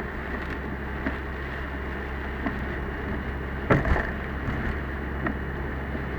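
Car driving in typhoon rain, heard from inside the cabin: a steady low rumble of engine and road, with scattered ticks of rain on the car and one louder knock about four seconds in.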